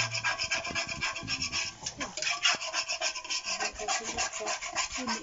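Long-handled metal spatula scraping and stirring food around a steel wok, a quick run of repeated rasping scrapes.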